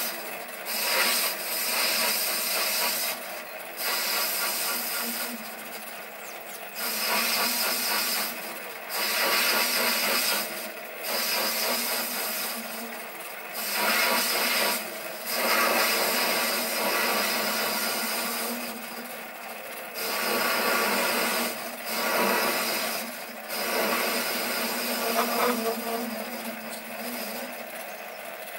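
Sieg SC3 mini lathe running while a facing tool cuts a cast iron workpiece: a rough scraping noise that swells and drops back every second or two as the cut is fed in, over the steady hum of the lathe's motor and drive.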